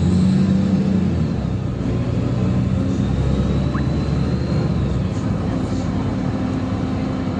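Engine and drivetrain of a LiAZ-5292.67 natural-gas (CNG) city bus running steadily while the bus is under way, heard from inside the passenger cabin, with a faint high whine over the low hum.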